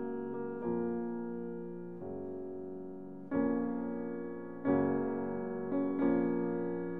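Background piano music: slow chords struck about every second and a half, each ringing on and fading before the next.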